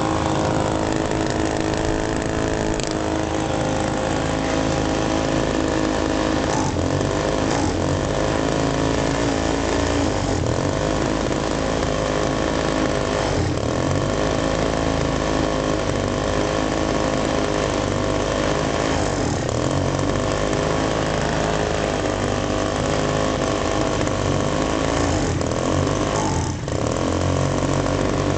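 24.6 cc two-stroke chainsaw engine converted for a model plane, running on a test stand and turning its propeller. The throttle is worked by hand, so the engine note dips and climbs back several times, with a sharper dip near the end.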